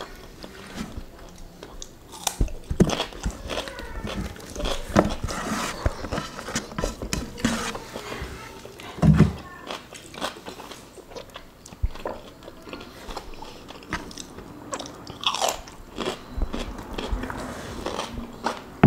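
Close-miked mukbang eating of dry fried curry chicken and rice by hand: chewing and biting with many irregular sharp crackles. A heavier thump comes about nine seconds in.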